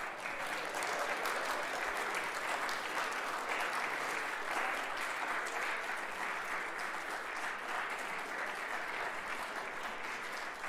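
Audience of schoolboys applauding steadily as prize winners are called up, a dense patter of many hands clapping in a large hall.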